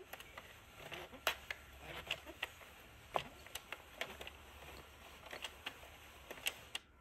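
Addi King knitting machine cranked slowly by hand during cast-on: its plastic needles and ring give faint, irregular sharp clicks, a few each second.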